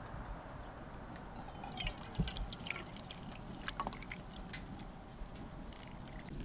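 Tea poured from a stainless steel pot into steel mugs, with soft trickling and dripping splashes.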